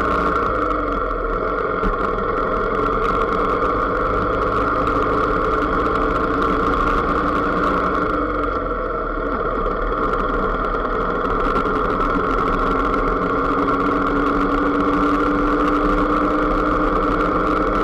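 The riding vehicle's engine running steadily at low speed on a town street, easing off briefly about nine seconds in, then pulling again with a slightly rising tone.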